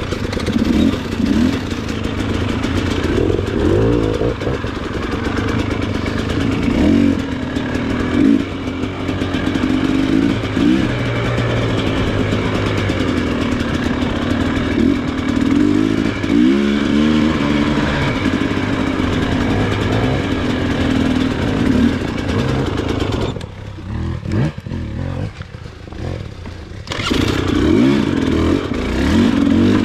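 Motorbike engine running under changing throttle, its pitch rising and falling repeatedly. It eases off for a few seconds about three-quarters of the way through, then picks up again.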